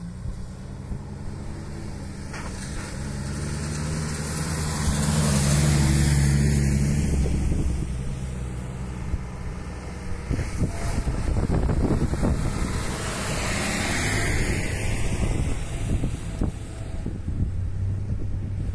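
Engines of 4x4 off-road vehicles running as they drive along a dirt track toward the microphone. The engine note swells to its loudest about a third of the way in, eases, and swells again near the end of the second third.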